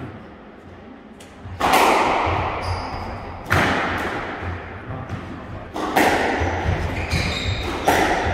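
Squash rally: four loud cracks of the ball being struck and hitting the walls, roughly two seconds apart, each ringing on in the enclosed court, with short high squeaks of court shoes on the wooden floor and lighter footfalls between.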